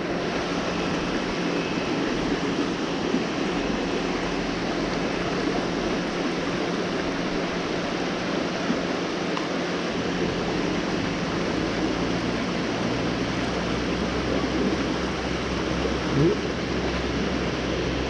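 Steady rush of fast-flowing tributary water below the dam. A low rumble joins about two-thirds of the way in.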